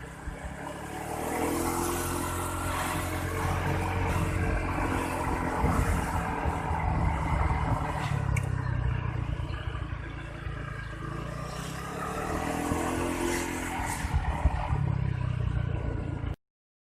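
A motor vehicle's engine running under a steady low rumble, its pitch rising and falling twice. It cuts off suddenly near the end.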